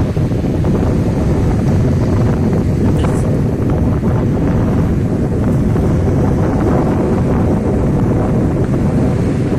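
Wind buffeting the microphone in a steady, loud rumble, with a brief click about three seconds in.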